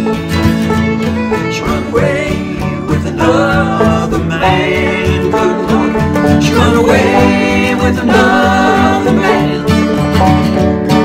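Bluegrass tune played on banjo and acoustic guitar, with a melody line that bends in pitch carried over the strummed chords and banjo picking.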